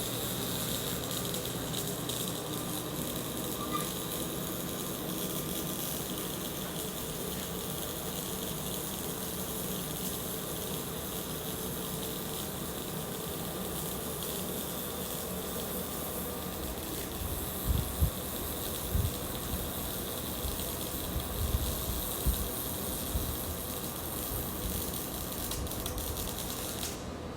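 A MIG welding arc in STT (surface tension transfer) mode laying a root pass on carbon steel pipe with .045" L-59 wire: a steady hissing crackle. It stops just before the end. A few low thumps come about two-thirds of the way in.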